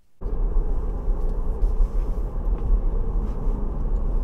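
Road and tyre noise inside the cabin of a Tesla Model 3 driving at about 40 mph: a steady low rumble.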